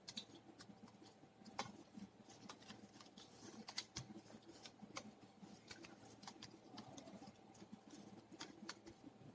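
Faint, irregular soft clicks and rustles of fingers rubbing castor oil over betel leaves.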